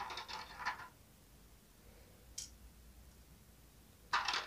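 Faint clicking and crackling of a clear plastic blister tray as fingers pick tiny plastic toy pieces out of it: a cluster of clicks at the start, a single tick about two and a half seconds in, and another cluster near the end.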